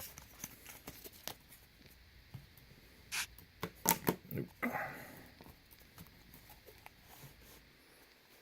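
Trading cards being handled and flipped through by hand: soft rustles and small clicks, with a few louder, sharper handling sounds about three to five seconds in.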